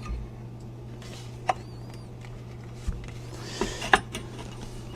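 A few light clicks and taps of metal rifle parts being handled as a Model 1903 rifle comes apart from its stock: one tap about a second and a half in, then a brief rustle and a couple more taps near the end, over a steady low hum.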